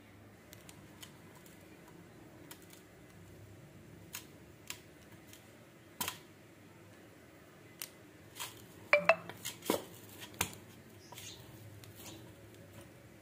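Dough being kneaded by hand in a stainless steel plate: scattered light taps and knocks against the metal, the loudest a quick cluster about nine seconds in, where the steel plate rings briefly.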